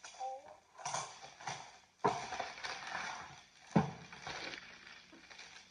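A cardboard toy box and plastic packaging being handled and pulled open: rustling and crinkling, with two sharp snaps about two and nearly four seconds in.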